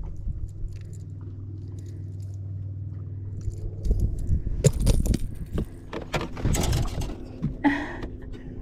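Metal pliers and fishing-lure hooks clinking, rattling and scraping as a hooked fish is worked free, starting about halfway through. Under it is a steady low hum.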